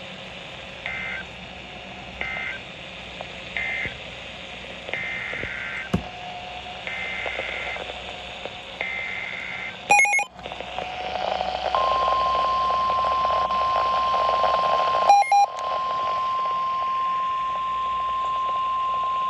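NOAA Weather Radio alert sequence heard through a Midland WR-120 receiver. It opens with a string of six short electronic beeps. About ten seconds in comes a brief screech of SAME digital header data, and from about twelve seconds the steady 1050 Hz warning alarm tone sounds over radio hiss, signalling that a warning message follows. A second short data burst cuts across the tone about fifteen seconds in.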